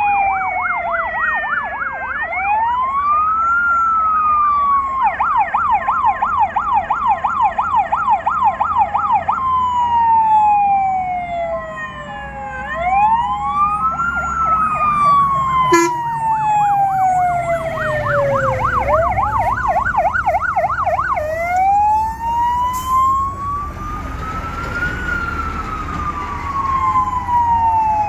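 Sirens of two fire engines on an emergency run, overlapping and switching between a slow rising-and-falling wail and a fast warbling yelp. The trucks' diesel engines rumble louder as they pass, in the second half.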